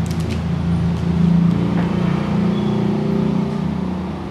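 A steady low engine drone, like a motor running nearby, with a few light clicks near the start.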